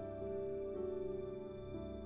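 Soft new-age background music with slow, held notes that change every half second or so.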